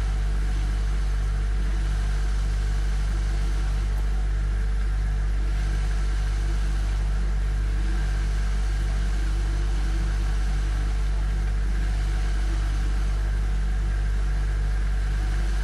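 Refrigerator heard from inside the cabinet: a steady low electric hum from the running compressor, with a slow, even pulsing in its lower tones.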